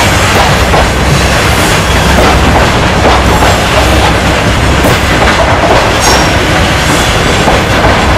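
Freight train of mineral hopper wagons rolling past close by: a steady, loud rumble of steel wheels on rail, with the clatter of wheels over rail joints and a faint high wheel squeal here and there.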